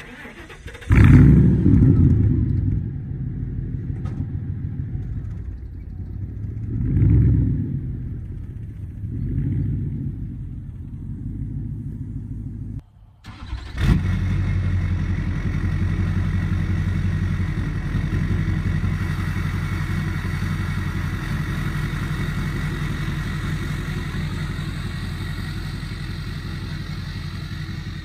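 Pickup truck V8-style engine sounds: a 1997 Ford F-150 with true dual exhaust starts about a second in and is revved twice. After a brief cut, a second pickup's engine runs steadily as the truck pulls away, easing slightly in level.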